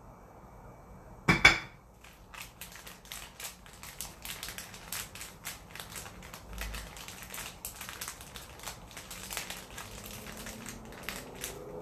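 A sharp knock about a second in, then a long run of quick, irregular small crackles and clicks as brown sugar is handled and put onto a split, buttered sweet potato.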